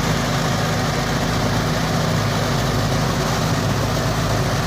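Mini rice threshing machine running steadily, its engine holding an even note.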